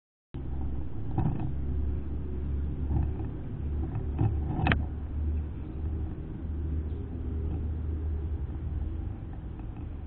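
Low steady rumble, with a few sharp knocks, the loudest near the middle, as a common grackle lands on a stainless steel seed bowl and pecks at the seed in it.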